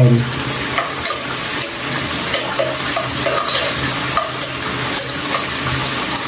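Chicken pieces frying in hot oil in a pan: a steady sizzle, with light clicks and scrapes of stirring.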